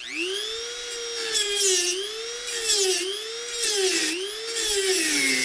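Dremel rotary tool with a cut-off wheel spinning up to a high whine, then cutting into the device's metal casing. About once a second the wheel bites with a grinding hiss and its pitch drops under the load, then recovers.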